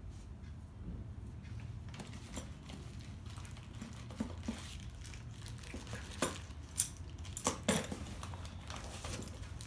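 Small hard parts clicking and clinking as kit components are handled and unpacked, a few scattered knocks with the loudest cluster about six to eight seconds in, over a low steady hum.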